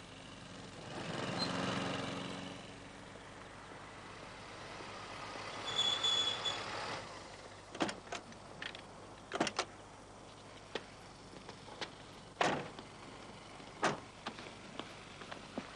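A vehicle passes, followed by a thin high squeal about six seconds in, then a string of sharp knocks and clicks spread out over the rest of the stretch.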